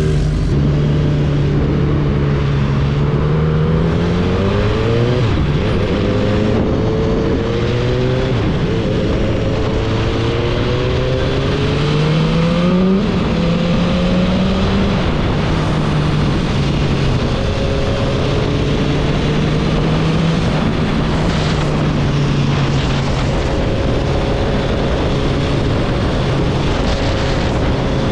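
Motorcycle engine accelerating through the gears, its note rising and then dropping back at each shift over the first half, then holding steady at cruising speed. Constant wind rush runs underneath.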